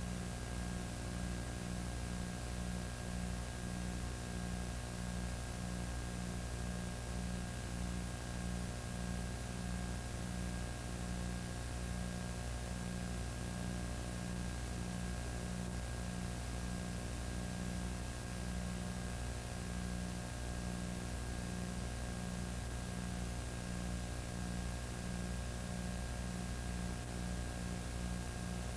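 Steady electrical hum and hiss with no other sound: the bare noise floor of a recording with no audio. A low part of the hum flickers on and off rapidly, and a thin high whine sits steadily above it.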